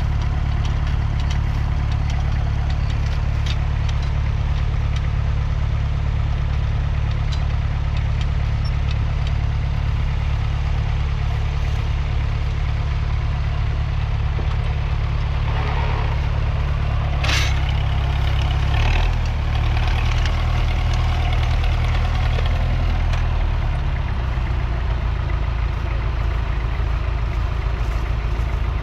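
Massey Ferguson 35's 2.3-litre four-cylinder diesel engine running steadily with a low, even note, its pitch shifting slightly about two-thirds of the way through and again a few seconds later. A single sharp click sounds a little past the middle.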